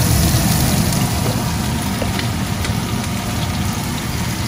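Gizzard and spring onions frying in oil and butter in a steel pot on a gas hob: a steady low rumble under a hiss, with a few faint crackles.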